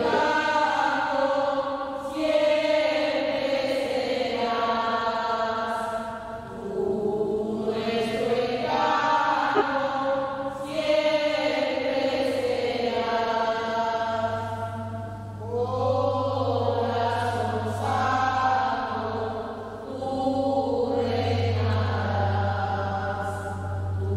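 A group of voices singing a slow hymn in long phrases with short breaks between them, accompanied by an electric keyboard that adds a held low bass from about halfway through.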